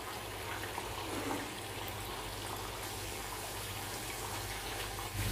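A bhatura deep-frying in hot oil in an iron kadai: a steady sizzling and bubbling of the oil.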